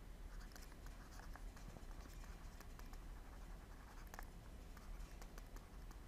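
Faint, irregular tapping and scratching of a stylus writing on a tablet screen, over a steady low hum.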